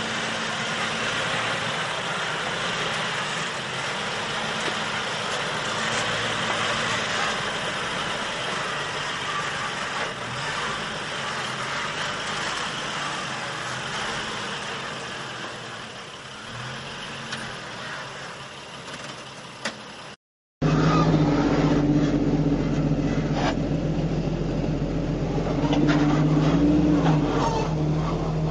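4x4 off-road vehicle engines working over a rock trail. For most of the stretch an engine hums faintly under a steady hiss; after a sudden cut about 20 seconds in, a much closer engine runs louder, its pitch rising and falling as it is throttled up and back.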